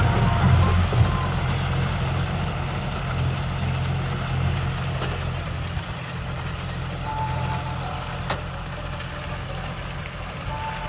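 Diesel tractor engine running steadily while driving a round straw baler, with a low hum that slowly fades. There is a single sharp click about eight seconds in.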